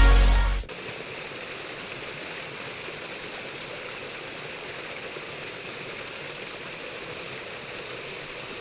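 Background electronic music cuts off abruptly under a second in, leaving a small rocky forest stream running steadily over stones.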